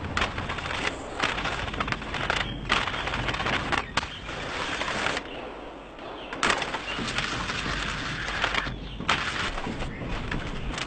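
Skate wheels rolling and clattering over rough stone paving and steps, a coarse rattle with many small knocks that cuts off and restarts abruptly several times.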